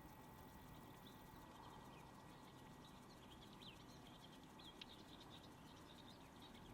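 Faint whinchat song: a run of quick, high chirping notes, densest in the middle of the stretch.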